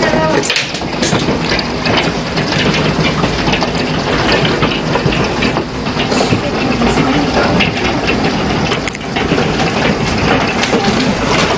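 Severe thunderstorm downpour: a dense, loud pelting of precipitation full of sharp impact clicks, over a steady low rumble.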